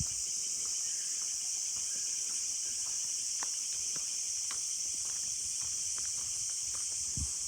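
Steady chorus of insects, a high-pitched unbroken drone, with a few faint scattered ticks beneath it.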